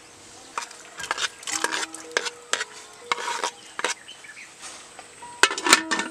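Metal ladle stirring inside an aluminium cooking pot, with scrapes and clinks against the pot. Near the end, several loud clinks as the aluminium lid is set on the pot.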